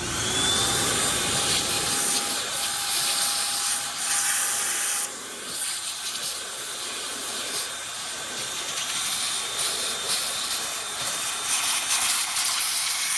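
Vacuum cleaner running while dust is vacuumed off a PlayStation 5. Its motor whines up to speed as it switches on, followed by a steady loud rush of air.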